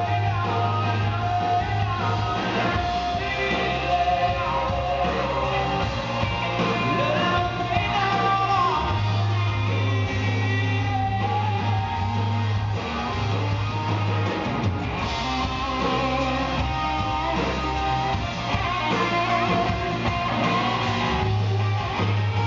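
A live country-rock band playing: a male lead vocal over acoustic and electric guitars, keyboard, drums and a strong, steady bass.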